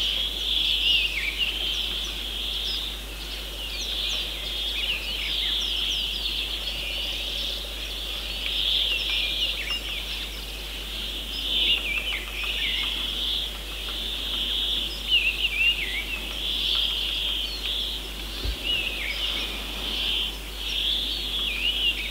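Small birds chirping and twittering continuously, a dense run of short high calls and quick sliding notes.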